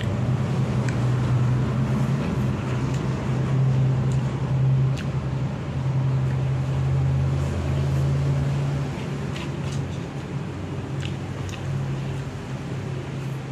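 A steady low mechanical hum, like a motor or fan, runs through the whole stretch and is the loudest thing. Over it come scattered light clicks and eating sounds as noodles are forked from a paper cup straight into the mouth.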